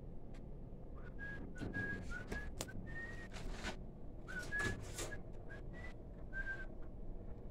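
A person whistling quietly: a string of short notes at shifting pitches, some gliding, with breathy air noise and a few light clicks.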